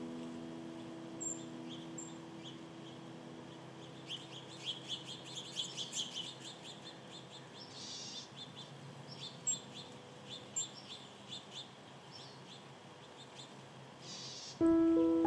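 Small birds chirping and calling, a string of short high chirps with a quick run of them about four to six seconds in. A held piano chord dies away at the start, and music comes back in near the end.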